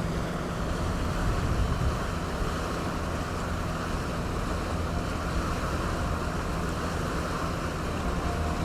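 Boat under way: a steady engine drone beneath wind buffeting the microphone and water rushing past the hull, in a freshening wind.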